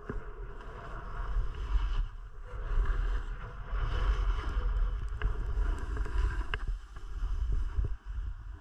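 Wind buffeting an action camera's microphone on a downhill ski run, over a rushing hiss of skis sliding on snow, with two brief clicks in the second half.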